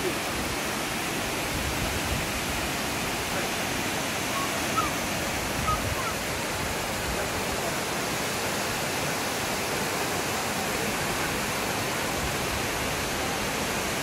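Shirahige Falls: several streams of water pouring down a rock face into a fast, rocky river, making a steady, unbroken rush of falling and flowing water.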